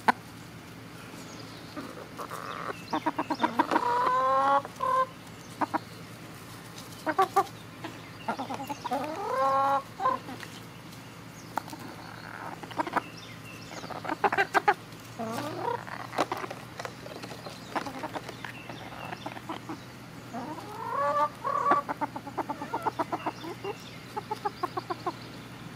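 Chickens clucking in runs of short quick clucks, with a rising drawn-out call four times, about every five or six seconds.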